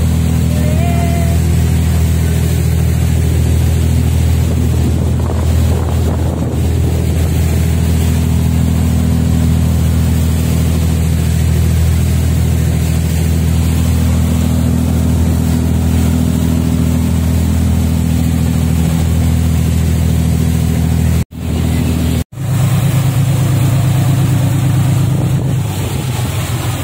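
Ferry bumboat's diesel engine running steadily under way, a deep drone, with wind buffeting the microphone and the rush of the wake. The sound drops out twice briefly a little after three-quarters of the way through.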